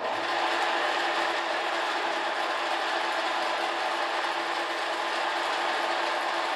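A Soviet TV-4 benchtop lathe running on a test run after its rebuild, its spindle and gear train turning with a steady whir and an even gear whine.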